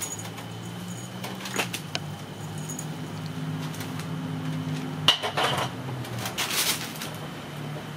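Kittens scrambling on a wooden lattice and batting a hanging cardboard tube toy: scattered scratching, rattling clicks and a sharp knock about five seconds in, over a steady low hum.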